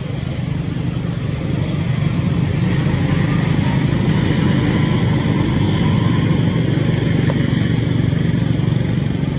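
A steady, low engine drone, growing a little louder over the first couple of seconds and then holding, with a few faint high chirps above it.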